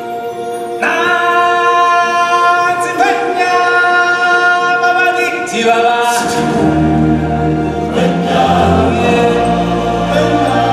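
Choir singing long held notes in a musical number. Deep low notes come in underneath about six seconds in.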